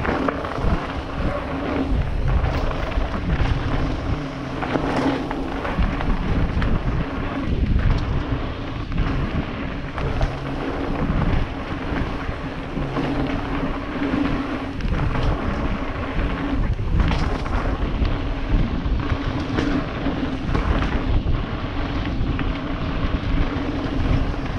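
Mountain bike ridden fast down a rough dirt trail, heard from a helmet-mounted camera: wind rushing over the microphone, tyres on dirt, and the bike rattling and knocking over bumps.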